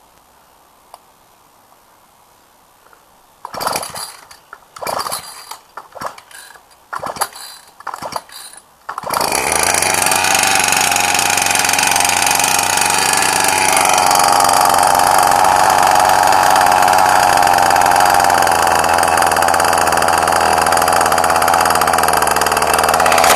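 Ryobi small petrol engine being pull-started from cold: a few seconds of quiet, then about five short pulls of the recoil starter. About nine seconds in it catches and runs on steadily; the engine is cold and runs reluctantly.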